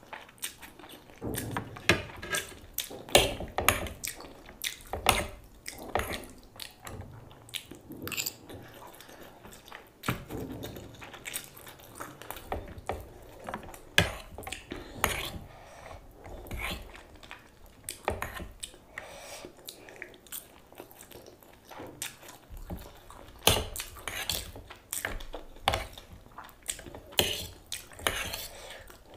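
Close-miked eating of chow mein noodles: a metal fork clinking and scraping on a plate as the noodles are twirled, between wet chewing and slurping mouth sounds. Irregular sharp clicks and smacks come throughout.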